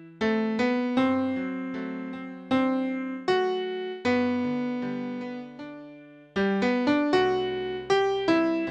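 Notation software playing back a church hymn arrangement in the key of G with a piano sound: a melody over chords, each note struck sharply and dying away, at a steady moderate pace.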